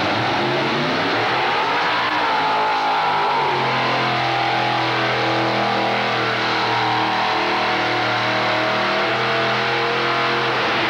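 Multi-engine modified pulling tractor running under full load as it drags the weight-transfer sled. The engine pitch wavers and climbs over the first couple of seconds, then holds steady at high revs.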